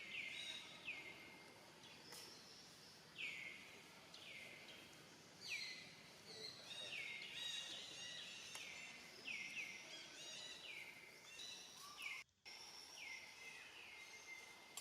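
Faint outdoor ambience with many short, high calls, each sliding down in pitch and levelling off, repeating and overlapping throughout. The sound cuts out briefly about twelve seconds in.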